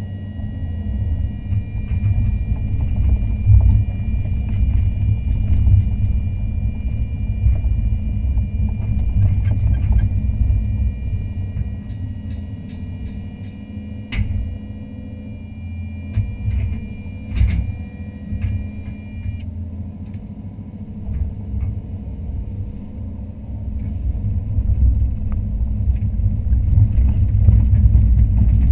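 Daewoo Solar 130-V excavator's engine and hydraulics running under load, heard from inside the cab, the rumble rising and falling as the bucket digs and swings, with a few sharp knocks about halfway through. The rumble is loudest near the end.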